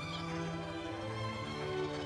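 Background music: a melody of held notes that step from one pitch to the next.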